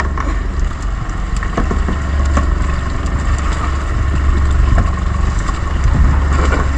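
Fishing boat's engine running steadily with a low drone, under scattered knocks and splashes from fish and net being handled.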